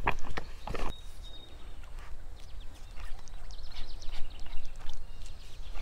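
Outdoor ambience with a low wind rumble on the microphone throughout. Two sharp knocks come in the first second, then scattered light high ticks.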